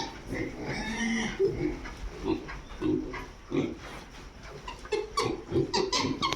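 Pigs grunting in a pen: short, low grunts repeated every half second or so, with a higher-pitched squeal about a second in.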